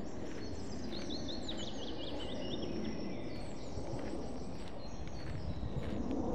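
Steady footsteps and rustle of movement along a dirt forest path. About a second in, a songbird sings a quick run of high repeated notes, followed by a few more high calls.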